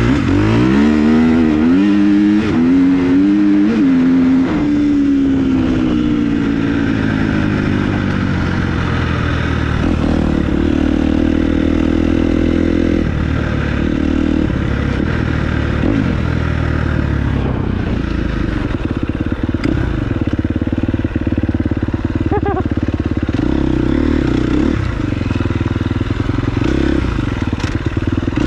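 Dirt bike engine under way, revving up in steps through the gears in the first few seconds, then winding down, then running on at varying throttle.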